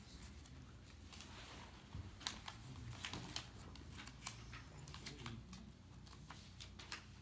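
Faint scattered clicks and rustles of small handling noises in a quiet room, over a low steady hum.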